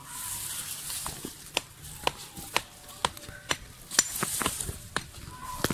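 Repeated sharp knocks, about two a second, of stones being struck and worked loose from rocky soil.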